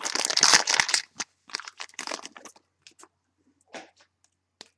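Trading-card pack packaging being torn open and crumpled, a loud crackling for about the first second, then lighter rustles and clicks as the cards are handled.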